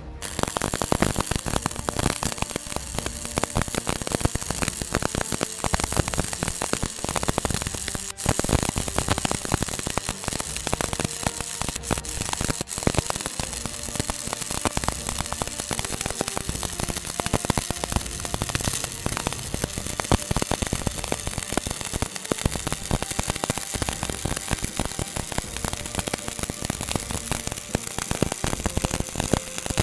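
Electric arc welding: the arc crackling steadily, a dense, continuous run of tiny crackles.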